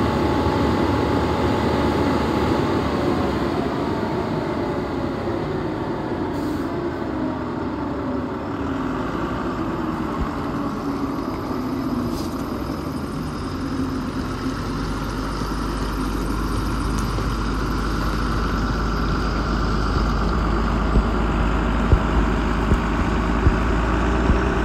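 Schwarze A7000 street sweeper truck running parked: its Cummins ISB diesel and sweeper machinery keep up a steady mechanical hum. A deeper rumble comes in about halfway, and there are a few sharp knocks near the end.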